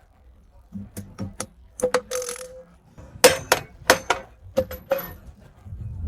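Metal tools and parts clinking and knocking: a string of sharp metallic clicks, some ringing briefly, with a quieter knock near the end.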